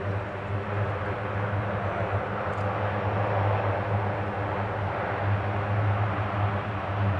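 Lockheed C-130J Super Hercules taxiing, its four Rolls-Royce AE 2100D3 turboprops with six-blade propellers running steadily. A low, even propeller hum sits under a broad engine rush that grows slightly louder in the second half as the aircraft passes.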